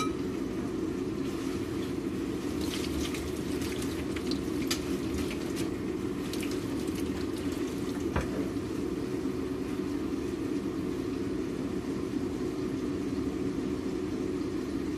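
Steady low hum of a kitchen range hood fan, with a few light clinks of utensils against stainless saucepans in the first half and one sharper knock about eight seconds in.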